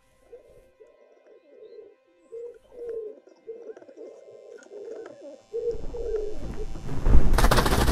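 Pigeons cooing, a steady run of short repeated coos. About two-thirds of the way through, a loud rushing noise swells in over them and grows louder near the end.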